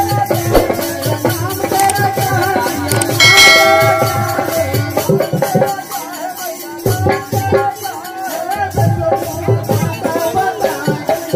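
Live devotional music: a harmonium with a hand drum and jingling percussion keeping a steady rhythm. A bright ringing tone sounds about three seconds in.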